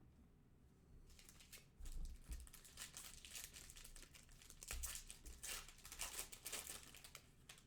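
Faint crinkling and tearing of a trading-card pack wrapper being ripped open and handled, a run of irregular scratchy crackles that starts about a second in.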